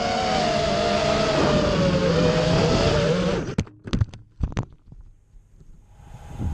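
5-inch racing quadcopter's brushless motors (Rebel 2306 2450KV) whining with several pitch lines slowly dropping. The sound cuts off suddenly about three and a half seconds in, followed by a few sharp knocks.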